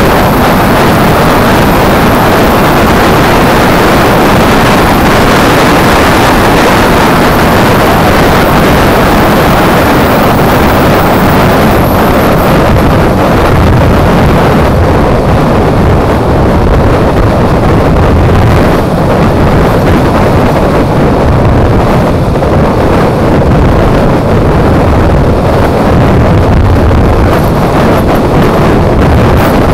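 Loud, steady wind rush and buffeting on a GoPro's microphone mounted on the wing mirror of a Suzuki Burgman 400 scooter riding at road speed.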